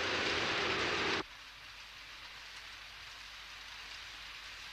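Cartoon sound effect of heavy rain, a loud even hiss that cuts off abruptly about a second in, leaving only a faint hiss.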